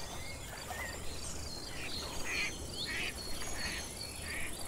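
Nature ambience: a duck quacking several times in the second half, over steady insect chirping and a few thin bird whistles.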